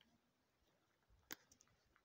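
Near silence, broken by one sharp click a little over a second in.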